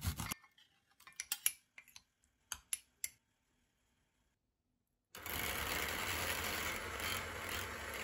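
A few light clicks and clinks, then about two seconds of silence, then an electric hand mixer starts and runs steadily, its beaters whipping cream in an enamel bowl.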